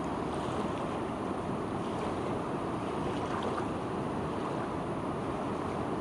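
Steady rushing of a wide, fast-flowing, swollen river, its choppy brown current and small waves making an even, unbroken wash of water noise.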